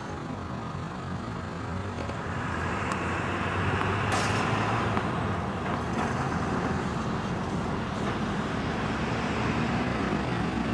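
Steady rushing background noise, growing louder about two seconds in, with one short, sharp sound about four seconds in.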